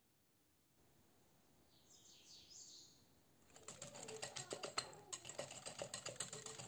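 Wire balloon whisk beating egg and sugar in a glass bowl. There is faint swishing at first, then from about halfway a fast, even run of clicking strokes as the wires hit the glass.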